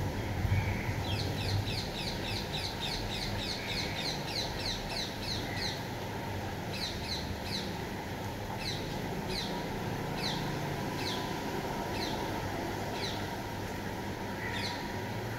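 A bird calling over a steady background rush: a quick run of short, high, falling notes, about three or four a second, for the first few seconds, then single notes roughly once a second.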